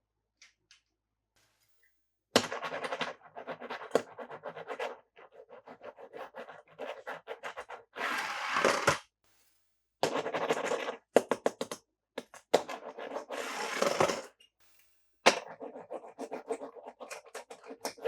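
Toy cars and playset pieces being handled, with rapid clicking, rattling and scraping in bursts that begin about two seconds in.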